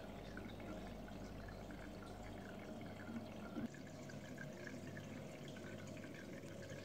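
Aquarium water circulation trickling and bubbling steadily over a low steady hum, with a couple of faint knocks just past halfway.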